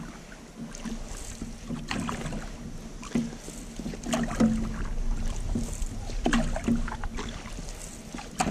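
Canoe paddling heard from inside the hull: paddle strokes swishing through the water, with knocks and clunks of the paddle and gear against the canoe every second or so.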